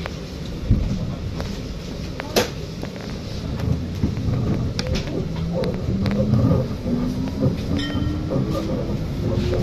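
Tram running, heard from inside the car: a low rumble of wheels on rails with a few sharp clicks, and an electric motor whine rising steadily in pitch over the second half as the tram gathers speed.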